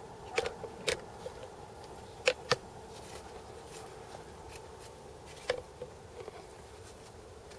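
A climber moving on rock, his harness gear and shoes making a few sharp clicks and knocks: a pair of loud ones about two and a half seconds in and another near five and a half seconds, over a steady low hum.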